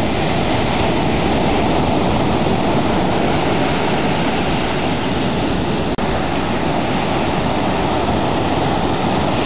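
Steady rushing noise of ocean surf breaking and washing up the beach, with a brief click and dropout about six seconds in.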